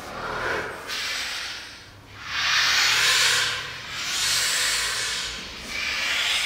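Unpitched air blown through a clarinet, an extended-technique breath sound with no clear note. It comes in several hissing swells of one to one and a half seconds each, with short breaks between them.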